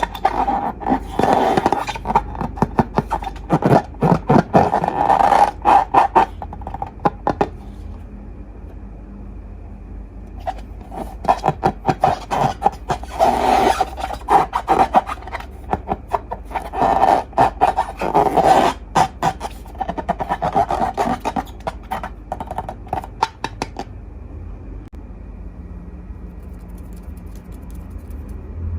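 Hands working slime and long balloons: rapid crackly scraping and rubbing in bursts, with a couple of quieter pauses.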